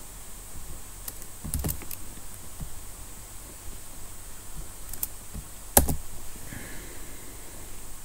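Computer keyboard and mouse clicks: a handful of separate clicks, the loudest a little before six seconds in, over a faint steady hum.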